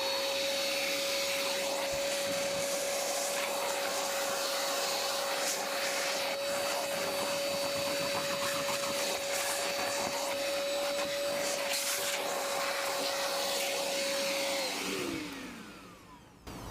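An electric motor switched on and running at one steady pitch for about fifteen seconds, then winding down and stopping near the end.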